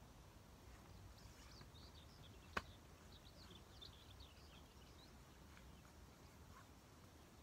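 Near silence with faint bird chirps, short high notes scattered through the first half, and a single sharp click about two and a half seconds in.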